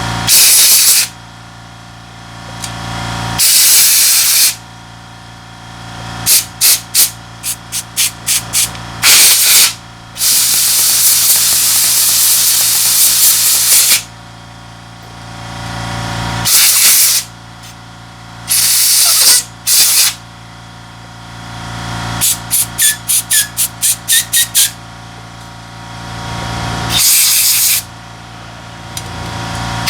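Repeated hissing sprays at carburetor parts being cleaned out: several one-second blasts, one long spray of about four seconds, and two quick runs of short puffs at about four a second. Each blast is meant to clear fuel residue from a carburetor clogged after months of standing.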